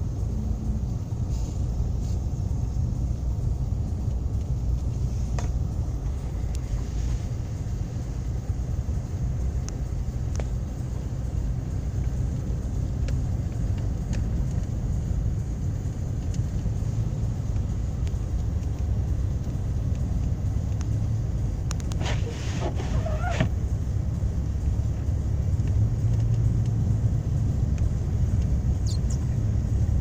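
Steady low rumble of a car driving on a snow-covered road, heard from inside the cabin: engine and tyre noise.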